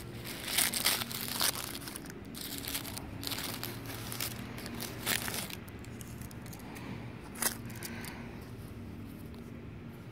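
Red paper wrapper of a pack of Black Cat firecrackers crinkling and tearing as it is pulled open, in several crackly bursts over the first half, then a single sharp click about seven seconds in.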